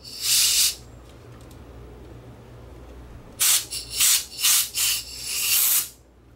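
Air station nozzle blowing air at a circuit board, to shift dust off the LCD panel. One short blast comes at the start, then about 3.5 s in comes a run of five quick puffs, the last one longer, all over a low steady hum.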